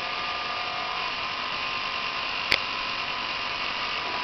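Small electric motor and gearing of a New Bright remote-control fire truck toy whirring steadily as it extends the boom, with one sharp click about two and a half seconds in.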